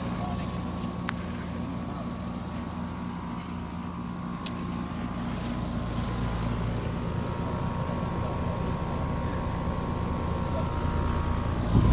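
Outdoor heat pump unit running in cooling mode: a steady compressor hum and the condenser fan running.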